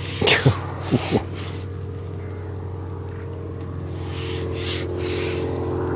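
A steady low drone made of several held tones, slowly growing louder over the last couple of seconds. Near the start a brief falling sound and two short taps come through on top of it.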